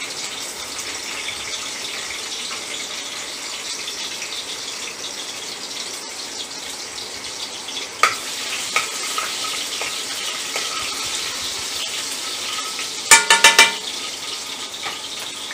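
Chopped garlic sizzling steadily in hot oil in a steel kadhai. About halfway through, a metal slotted ladle scrapes the pan, and near the end it strikes the pan about four times in quick succession with ringing metallic clinks.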